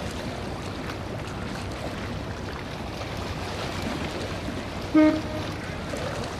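Steady wash of harbour water and wind noise, with one short, loud pitched toot about five seconds in.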